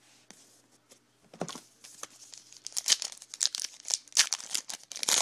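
Crinkling and tearing of a 2011 Topps Allen & Ginter's baseball card pack wrapper as the pack is ripped open. There is near silence for the first second or so, then a quick run of sharp crackles that is densest in the second half.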